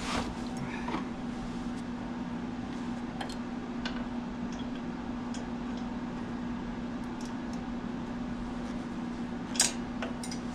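A steady low hum with scattered faint clicks and a sharper click about nine and a half seconds in, typical of hand tools being handled.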